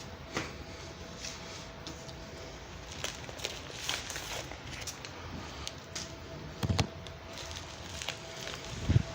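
Handling of a DVD case and its contents: scattered small plastic clicks and rustles, with two dull thumps, one about seven seconds in and one near the end. A faint steady hum runs underneath.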